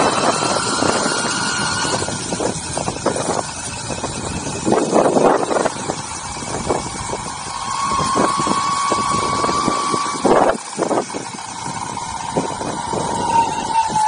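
Ecomobl ET electric skateboard's motors whining under way, the pitch rising and falling with speed, over the hiss of its wheels on wet asphalt and frequent short knocks and rumbles.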